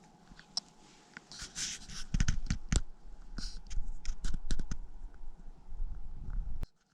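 Close handling noise: rustling, scraping and sharp clicks right at the microphone, with a heavy low rumble under them from about two seconds in, cutting off abruptly near the end.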